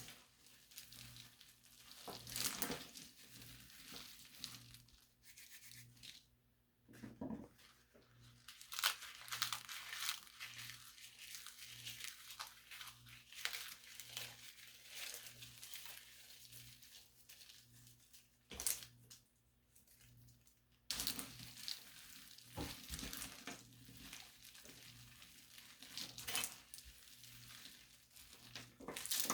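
Irregular crunching and crumbling of brittle material, in bursts with short lulls, over a faint low hum that pulses about twice a second.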